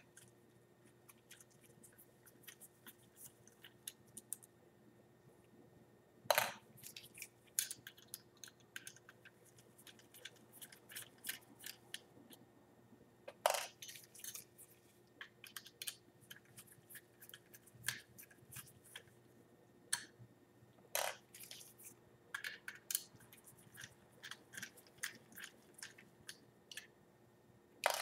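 Small screws being backed out with a screwdriver and small metal parts handled: scattered light clicks and ticks, with a few sharper clicks about six, thirteen and twenty-one seconds in, over a faint steady hum.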